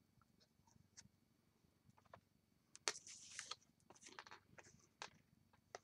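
Faint rustling and light taps of cardstock being picked up, slid and laid down on a work mat, with a short burst of rustling about three seconds in and a few more soft ones after.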